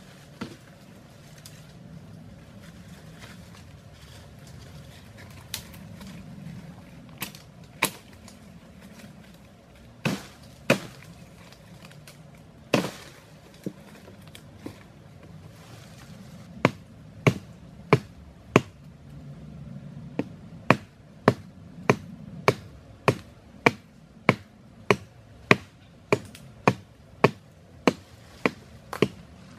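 A sharp hand-held stone chopping at the base of a green sapling, each blow a sharp knock. The knocks come singly and scattered at first, then about halfway through settle into a steady run of about two blows a second.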